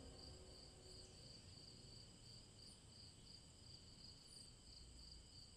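Near silence: the last of a music chord dies away within the first second or so. A faint high tone goes on pulsing evenly about three times a second.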